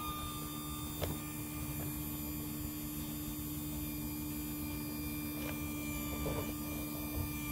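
Hydraulic slide-out pump motor of a fifth wheel running steadily as the bedroom slide-out retracts, a steady hum that cuts off at the end when the slide is fully in.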